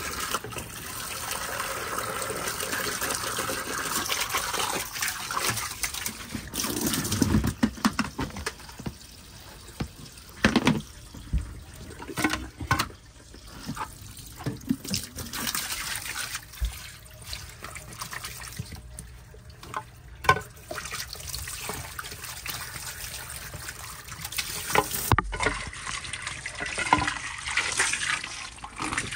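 Water running and trickling in a box turtle's water setup, with several short, sharp splashes or knocks scattered through.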